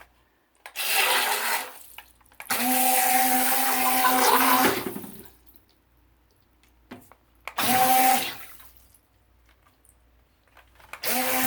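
Syma Q10 remote-control boat's electric motor running in short bursts, a steady whine over the churn of its propeller in the water. There is a short burst about a second in, a longer one of about two seconds soon after, another brief one past the middle, and it starts up again just before the end, with near silence in between.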